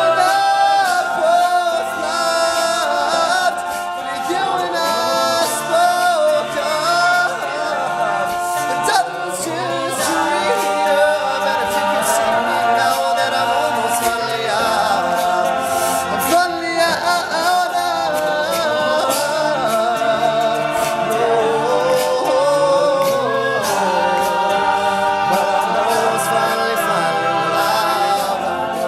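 Male a cappella group singing in close harmony, a lead voice over the backing voices, with a run of short sharp clicks keeping the rhythm.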